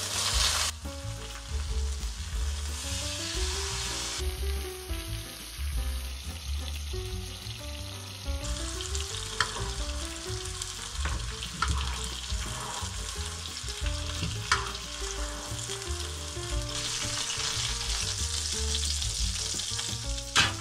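Beef steak sizzling steadily as it sears in a hot frying pan, with a few light clicks. A light background music track with a melody plays underneath.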